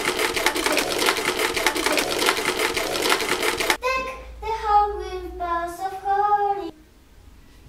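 A fast, even run of clicks for about four seconds, then a young girl singing a few phrases into a studio microphone.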